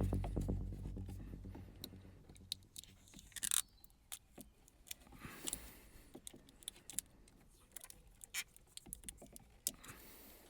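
Background music fades out over the first second or two. Then come faint scattered clicks, scrapes and short rustles of hands wrapping insulating tape around the steering wheel's horn wire plugs, with the sharpest click about three and a half seconds in.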